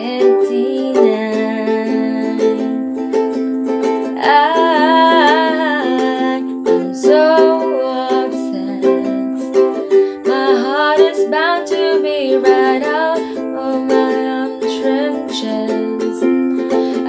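Ukulele strummed in a down-down-up-up-down-up pattern through C, G, A minor and F chords, with a woman singing along over it.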